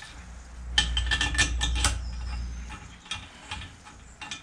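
Steel head bolts clinking and clicking against the tractor's cylinder head as they are fitted by hand: a quick run of clicks about a second in over a low handling rumble, then a few scattered taps.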